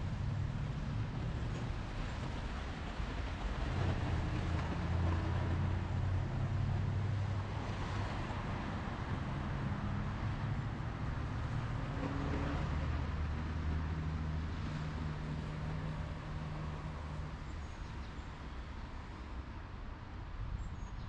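City traffic noise: a steady low hum of vehicle engines that shifts in pitch as vehicles pass, over an even hiss of street noise.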